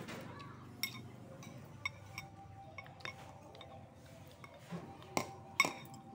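Metal chopsticks and a fork clinking against a ceramic bowl while eating noodles: several sharp clinks, the two loudest near the end.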